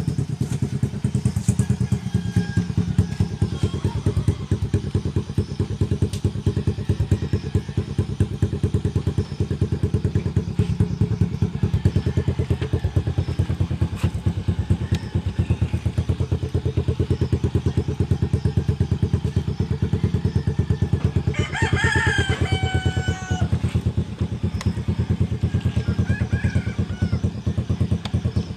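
Motorcycle engine and exhaust idling steadily with an even, pulsing rumble. A rooster crows over it about three quarters of the way through, more faintly again shortly after.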